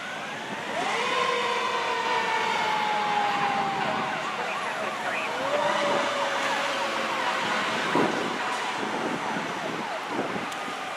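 Fire apparatus sirens wailing. A long tone falls slowly at first, then rapid up-and-down yelp cycles sound over it through the middle. There is a short loud blast about eight seconds in.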